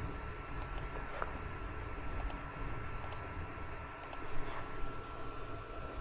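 Computer mouse button clicking, each click a quick double tick of press and release, about four times over a few seconds. A faint steady high hum and low room rumble lie underneath.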